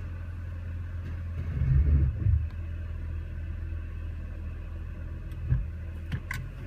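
BMW engine idling in gear, a steady low hum that swells up louder for about a second around two seconds in, with a few short clicks near the end. The idle is rough: the owner's scan shows a cylinder-four misfire and low airflow through a carbon-fouled electronic throttle body.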